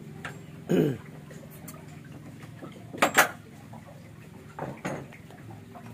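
Hands working on engine parts: a few sharp knocks and clanks of metal being handled, two close together about three seconds in and two softer ones near the end, over a steady low hum. Just under a second in there is a short sound that falls in pitch.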